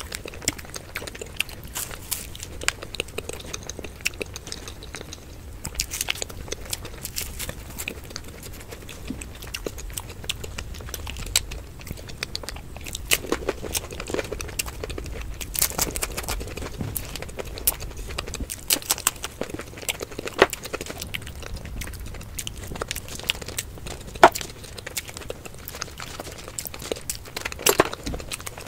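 Close-up chewing and crunching of crisp fried Indian street snacks, a fried pastry shell and papdi chaat, with frequent sharp, irregular crackles.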